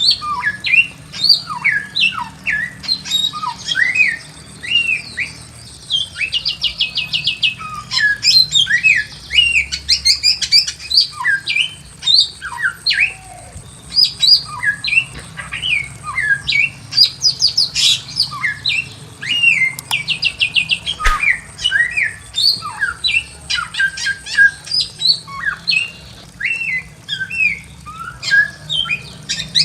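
Bare-throated whistler singing a long, varied song of whistled notes that slide up and down, broken by several fast trilled runs.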